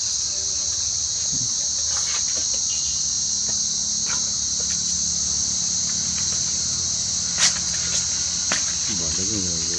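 Steady, high-pitched chorus of insects trilling, with a couple of sharp clicks late on.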